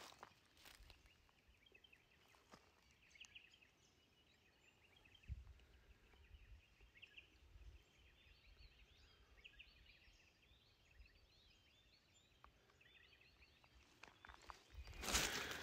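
Near silence outdoors, with faint high chirping through the middle and a louder noisy rustle near the end.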